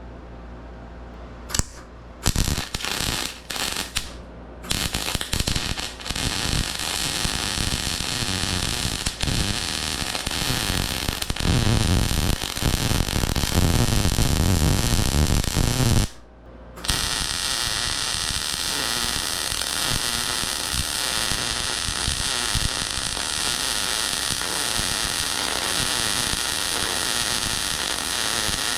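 Electric arc welding on the door hinges: a few short crackling starts, then a long steady crackle of a weld bead that breaks off briefly about halfway through and then runs on.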